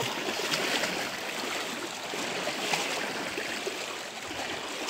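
Small waves lapping and splashing at the shoreline: a steady, uneven wash of water.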